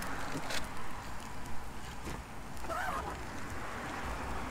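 Egg frying in butter in a pan on a propane camp stove: a steady sizzle, with a couple of sharp clicks from things being handled near the stove.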